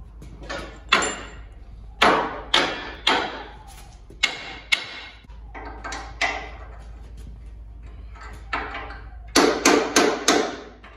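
Hammer blows on the steel front suspension of a truck frame, knocking a control arm into line for its mounting bolts. About a dozen sharp, ringing strikes at an uneven pace, ending in a quick run of four.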